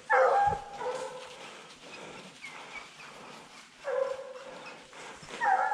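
Hunting hounds baying: four drawn-out bays, two close together at the start, then one about four seconds in and one near the end.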